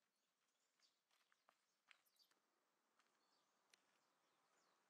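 Near silence: faint outdoor background with a few faint, high, short chirps and ticks scattered through it.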